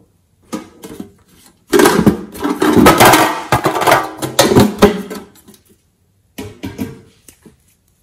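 Small objects clattering and rattling inside a tin box as hands rummage through it, loudest and busiest for a few seconds in the middle, with a few lighter clicks of handling before and after.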